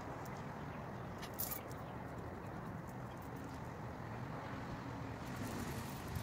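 Steady outdoor background noise, with a few faint clicks a little over a second in.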